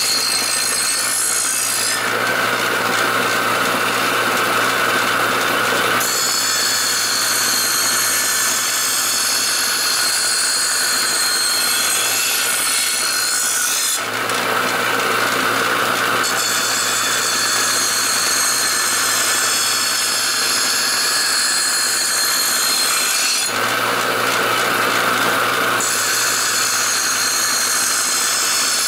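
Bench grinder running steadily while a steel lawnmower blade is pressed against its abrasive wheel, giving a continuous grinding hiss as the cutting edge is sharpened. Three times, for a couple of seconds each, the blade comes off the wheel and the grinder's motor hum shows through.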